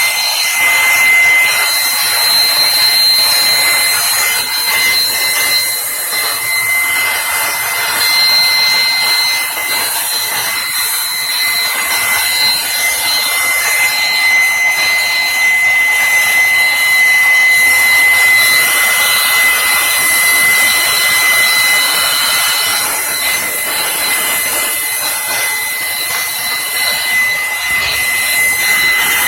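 Small electric air-cleaning tool running continuously: steady rushing air with a constant high-pitched motor whine, used to clear dust out of a mixing console.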